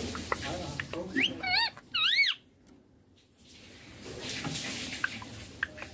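Baby ringneck parrot calling: small clicks and chirps, then two short rising-and-falling squawks about one and a half and two seconds in. A soft hiss follows later.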